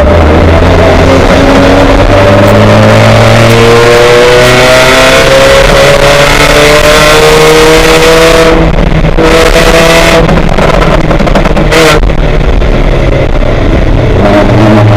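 Race car engine at speed on track, its pitch climbing in steps as it shifts up through the gears, then easing and falling back after about eight seconds.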